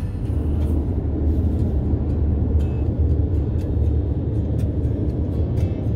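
Steady low rumble of a car driving, heard from inside the cabin, with a few faint light ticks.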